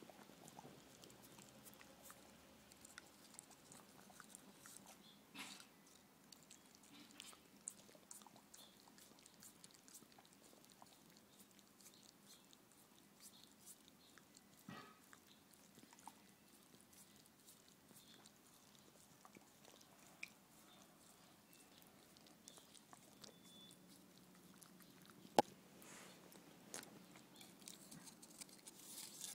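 Faint, scattered wet licking and chewing of dogs working at a frozen popsicle, with small clicks and ticks here and there. One sharp click near the end.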